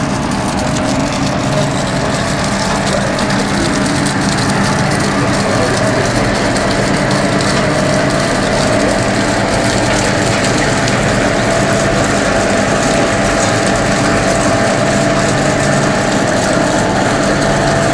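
Industrial flake ice machine running steadily: a constant machine hum and rushing noise with a held mid-pitched tone.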